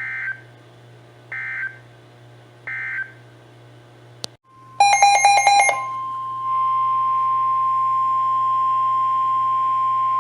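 NOAA Weather Radio / EAS alert signalling: three short buzzy bursts of SAME end-of-message data tones about a second and a half apart mark the end of one warning. Then comes a click, about a second of rapid harsh beeping, and the steady single-pitch 1050 Hz weather radio alarm tone that announces the next warning.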